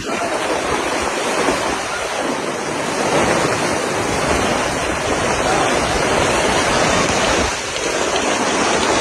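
Hurricane-force storm wind blowing hard, a loud steady rushing noise that buffets the microphone.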